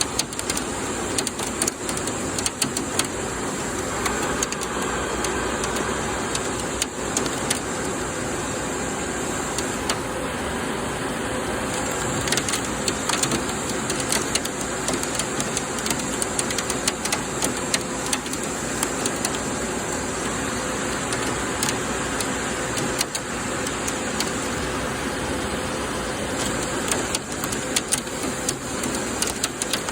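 Doosan PUMA GT2600 CNC lathe cutting an SUS316 stainless steel flange. Cutting oil sprays and chips strike inside the enclosure, giving a steady rain-like hiss with scattered sharp ticks like hail falling, over the machine's steady running hum.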